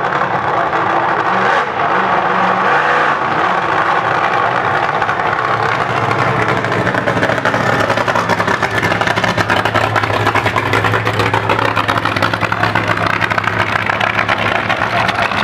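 Nitro funny car's supercharged V8 running at low speed as the car rolls by: a loud, steady, lumpy rumble with a rapid crackle from the open exhausts.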